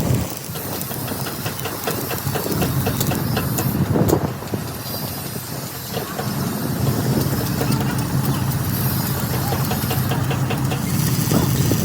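A motor runs steadily under a continuous hiss, with irregular sharp clicks and crackles.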